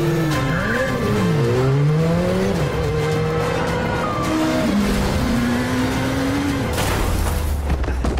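Film chase soundtrack: a motorcycle engine revs up and down hard as it weaves among pursuing police cars, with tyres squealing, over music. A deep rumble builds near the end and breaks into a crash as the rider is thrown from the bike.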